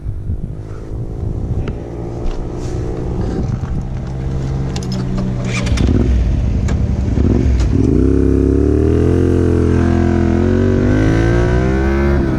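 Honda Varadero 125's small V-twin engine idling, with a few sharp clicks just before it pulls away about halfway through. It then accelerates, the revs rising and holding as the bike gets up to speed.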